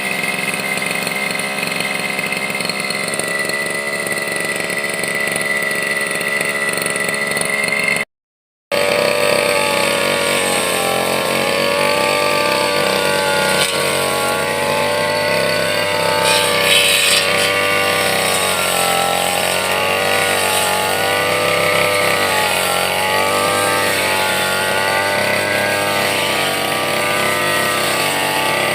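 Brush cutter engine running continuously, its pitch wavering up and down as the blade meets and leaves the plants while trimming. The sound drops out completely for under a second about eight seconds in.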